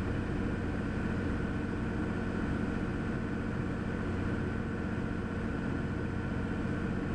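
Cessna 400's turbocharged six-cylinder piston engine and airflow droning steadily in the cabin on final approach, with a faint steady high tone over it.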